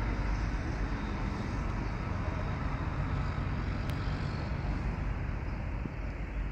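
Wind buffeting the microphone outdoors, a steady low rumble, with one faint click about four seconds in.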